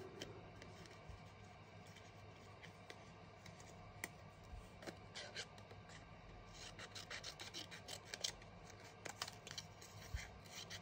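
Scissors snipping a fringe of strips into a piece of white card: faint, scattered snips at first, then a quick run of them in the second half.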